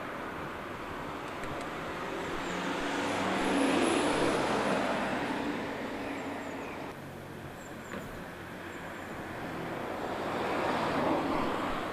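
Road traffic passing on the street: two vehicles swell up and fade away, one about four seconds in and another near the end.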